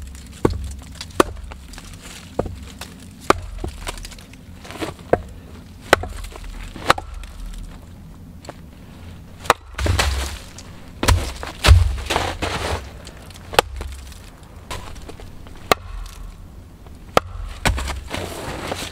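Hatchet splitting small firewood rounds: the blade is set in the round and both are knocked down onto a chopping stump, giving a run of sharp wooden knocks, roughly one a second, with the crack of wood splitting.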